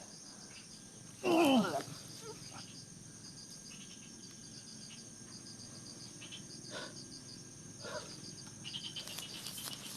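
Crickets and other insects chirping steadily in a high-pitched trill. About a second and a half in comes one short cry falling in pitch, the loudest sound here, and a few faint knocks follow later.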